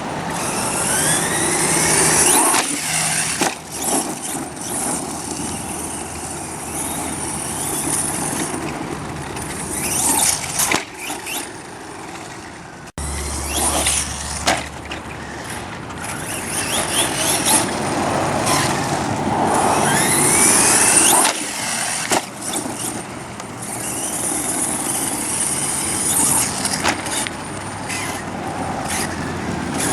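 Redcat Volcano EPX Pro RC truck being driven hard: its brushless electric motor whines up in pitch each time it accelerates, over the hiss of tyres on the ground, with scattered sharp knocks from bumps and landings.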